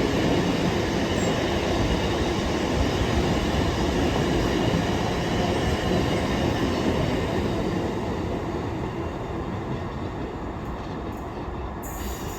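Aggregates freight train hauled by a Class 59 locomotive rolling past, a steady rumble of wagon wheels on the rails that slowly fades over the last few seconds.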